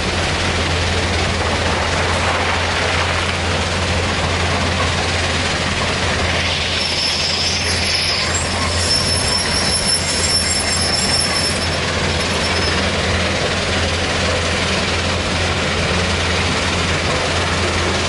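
Steady din of heavy machinery: a Kobelco hydraulic excavator's diesel engine and a stone crushing/screening plant running together, with a constant low hum. A faint high metallic squeal comes in about six seconds in and fades out around thirteen seconds.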